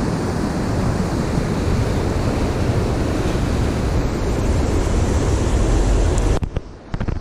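Ocean surf breaking over shore rocks, a steady loud rush mixed with wind buffeting the microphone. About six and a half seconds in, the rush drops away suddenly and a few sharp clicks follow.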